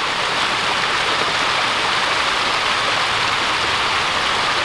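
Water from a stepped pyramid fountain splashing down its steps in a steady rush.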